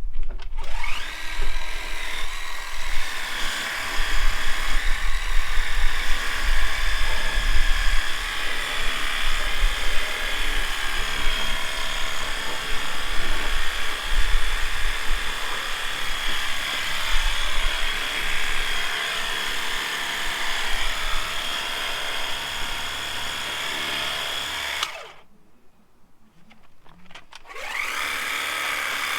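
Small electric power tool running steadily with a high motor whine, spinning up at the start; it stops for about two seconds near the end, then spins up again.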